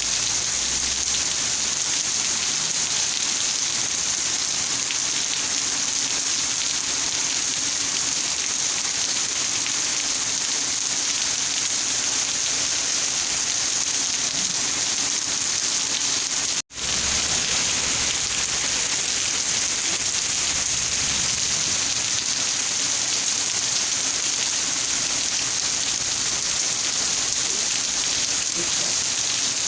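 Steady rain falling, an even hiss, with a momentary dropout to silence about two-thirds of the way through.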